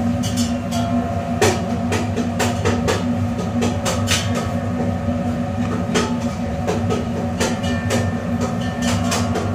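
Steady mechanical hum of kitchen equipment with frequent irregular light clicks and knocks from utensils and hands working on the cutting board.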